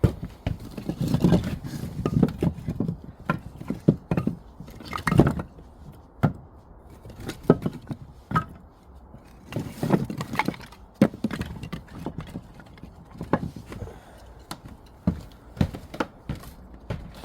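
Irregular knocks, clacks and scraping, as of things being handled and set down.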